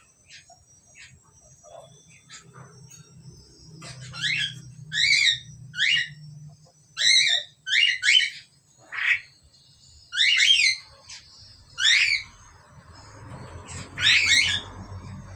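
Asian pied starling giving a string of about ten loud, short whistled calls in quick bursts.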